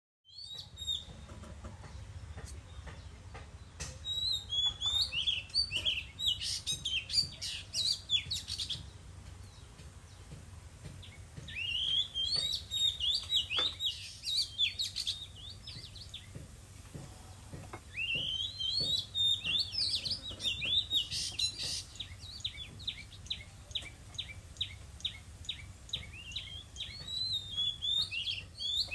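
Oriental magpie-robin singing: bouts of varied, quickly changing whistled phrases a few seconds long, broken by short pauses. A low steady rumble runs underneath.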